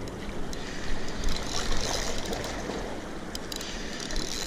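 Steady rush of water off the dam spillway, with a few light clicks from a spinning reel being cranked against a heavy fish.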